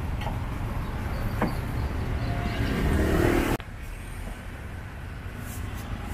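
Low rumble of road traffic, swelling as a vehicle passes about three seconds in, then dropping abruptly to a quieter rumble a little past halfway.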